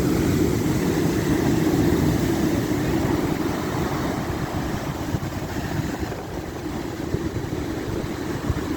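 Strong wind buffeting the microphone: a loud, steady low rumble that eases a little about halfway through.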